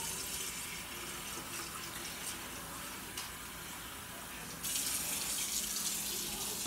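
Kitchen faucet running in a steady stream into a metal cooking pot as it fills with water. The splashing turns louder and brighter about two-thirds of the way through.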